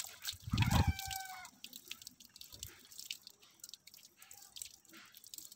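Water poured over cut taro leaves, splashing and dripping onto a concrete floor in many small splashes. About half a second in, a farm animal calls once for about a second; this is the loudest sound.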